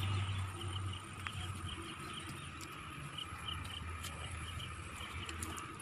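Quiet outdoor background: a steady low hum with faint short chirps repeating irregularly, and a few small clicks near the end.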